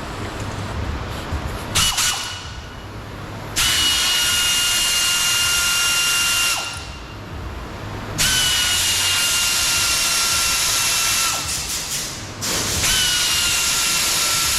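Power drill running a screwdriver bit to back out the door-lock screws. A short blip comes first, then three separate runs of about three seconds each, one per screw. Each run is a steady high whine that dips slightly just after it starts.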